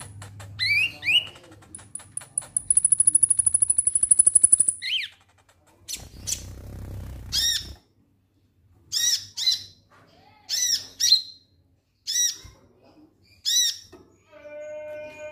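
Male van Hasselt's sunbird (kolibri ninja) calling: a long, very high rapid trill, then a short rustle of wings, then a run of sharp, harsh 'ngek' calls about once a second, ending in a nasal buzzing note.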